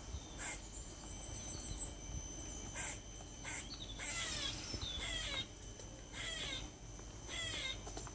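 Squirrel giving bird-like calls: a few short harsh calls, then from about halfway repeated bursts of quick, falling chirps roughly once a second.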